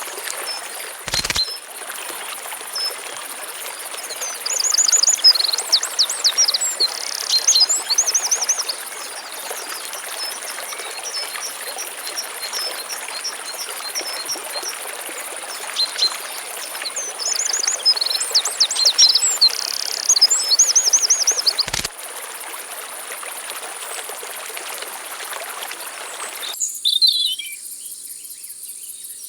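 A songbird sings the same phrase of quick trills and rising notes twice, over a steady high insect drone and a constant hiss of flowing water in a riverbed. There are a couple of brief knocks, near the start and about two-thirds of the way in.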